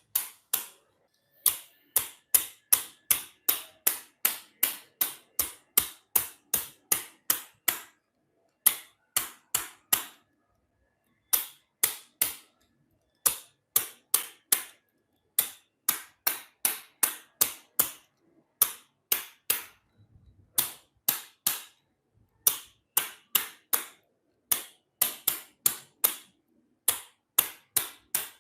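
Handheld chiropractic spine-adjusting instrument firing sharp clicks, about two to three a second, in runs broken by short pauses, as it adjusts the thoracic spine.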